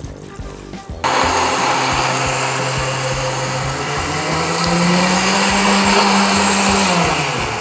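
Countertop blender motor starting abruptly about a second in and puréeing tomatoes and fresh coriander with a little water. Its pitch rises about midway, then drops as the motor slows near the end.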